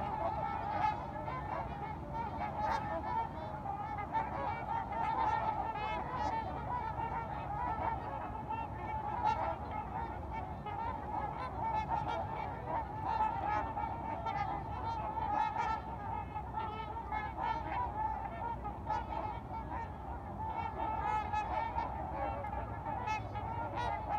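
A large flock of trumpeter swans calling continuously, many honking calls overlapping into a steady chorus.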